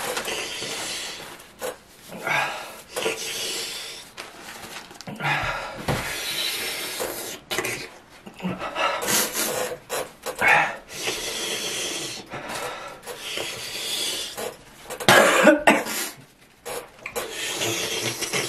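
Paper tissues rustling and crumpling, broken by coughs, sniffs and heavy breaths: a person suffering the burn of an extremely spicy chip.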